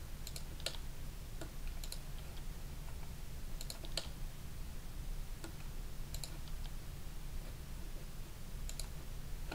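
Scattered clicks of a computer mouse and keyboard, single and in quick pairs, every second or so, over a steady low hum.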